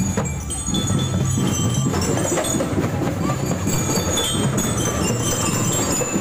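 Crowd hubbub of many people walking and talking in a procession, with short, scattered high metallic tinkles.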